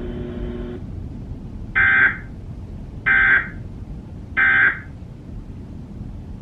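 Emergency Alert System end-of-message signal: three short, harsh, buzzy digital data bursts, about a second and a half apart, marking the end of the warning broadcast.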